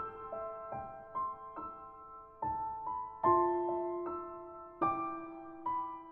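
Slow, gentle piano music: single notes and soft chords struck one after another, each ringing and fading out before the next.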